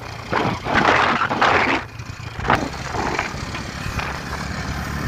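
A motorcycle engine running at low revs, a steady low rumble, with loud gusts of noisy hiss in the first two seconds and a shorter one about halfway.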